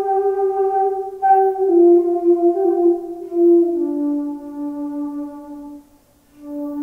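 Solo transverse flute playing a slow melody of long held notes that step gradually downward, with a short breath pause about six seconds in.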